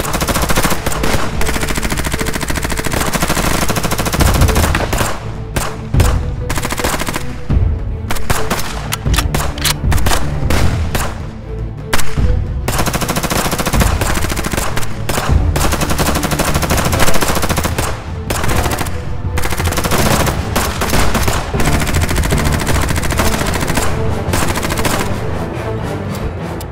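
Sustained rapid gunfire, with machine-gun bursts and single shots overlapping, over background music; it cuts off abruptly at the end.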